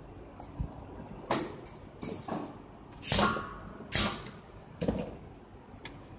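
Clacks and knocks from a syringe being handled at an analytical balance's sliding glass draft shield and at a pneumatic gel-filling nozzle, with a short hiss-like burst just after the midpoint as the filling valve fires.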